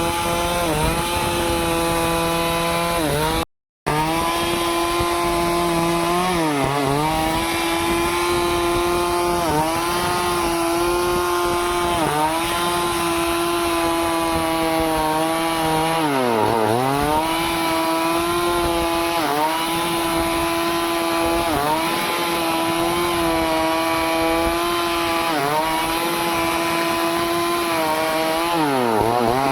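Stihl chainsaw running at high revs while cutting through a tree, its pitch sagging sharply and recovering every few seconds as the chain bites into the wood under load.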